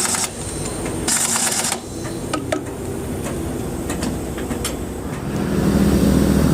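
Two short hisses of air, then a few light metallic clicks and knocks, then a truck engine running, growing louder from about five seconds in.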